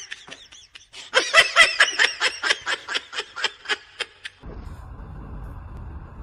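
A person laughing in a fast run of high-pitched giggles for about four seconds, then a cut to a steady low hum of room noise.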